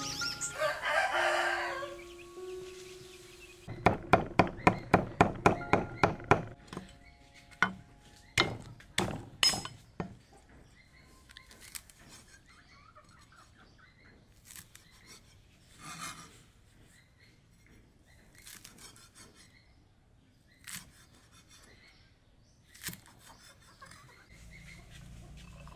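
Steel cleaver chopping spring onions on a wooden chopping board. A fast run of about nine chops, roughly four a second, is followed by slower, scattered single chops. A rooster crows near the start.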